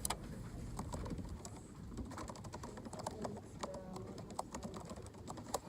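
Footsteps climbing stairs: light, irregular clicks and taps over a low rumble.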